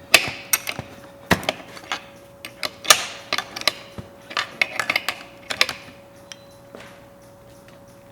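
Sharp metallic clicks and clinks of a router bit being changed: spanners on the collet nut and the bit and collet being handled. The clicks come thick and irregular, then thin out after about six seconds, with a faint steady hum underneath.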